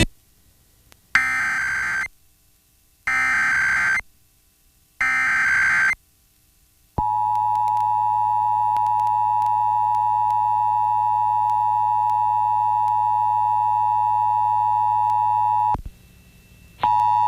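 Emergency Alert System test signal: three one-second bursts of SAME header data tones, evenly spaced, then the two-tone EAS attention signal (853 and 960 Hz) held steady for about nine seconds and cutting off suddenly. The attention tone starts again near the end.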